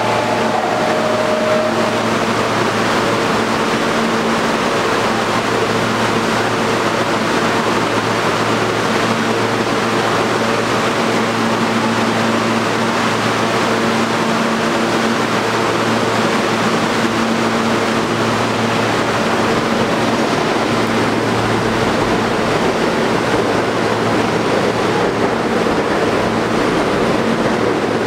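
Subway train standing in the station with its doors open: a steady, loud rushing hum from the car's air-conditioning and equipment, with a low drone.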